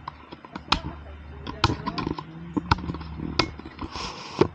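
Sharp knocks and clicks, about five of them at uneven intervals, each short and sudden.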